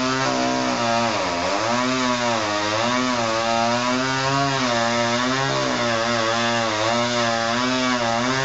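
Chainsaw engine running steadily loud, its pitch dipping and recovering again and again, most deeply about a second and a half in.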